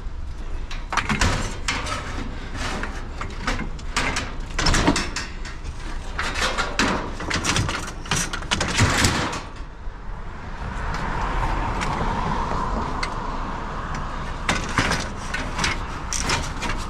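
Scrap metal being handled and loaded into a vehicle: repeated knocks, clanks and rattles, giving way about ten seconds in to a steady rushing noise for a few seconds before the knocking resumes near the end.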